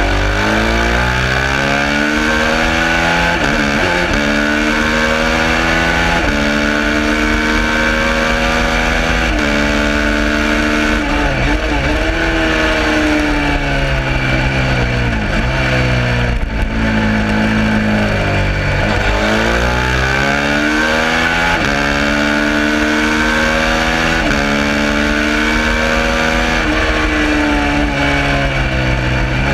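Suzuki SV650's 90-degree V-twin engine racing on track. The revs climb through the gears and drop sharply several times as the bike brakes and downshifts for corners.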